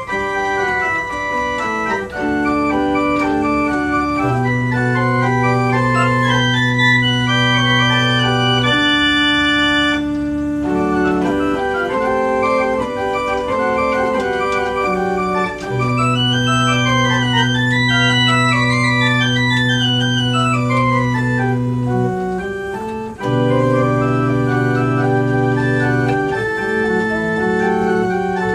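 Pipe organ playing a slow contrapuntal piece, with long held low notes under moving upper voices and short breaks between phrases.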